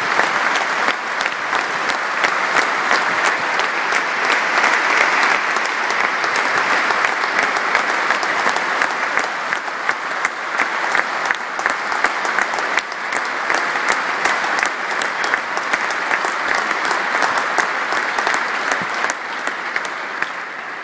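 A stadium crowd applauding steadily, a dense mass of handclaps that eases off near the end.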